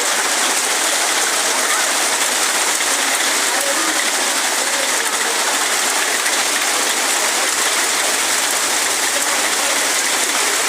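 Heavy storm rain falling steadily: a loud, even hiss with no breaks.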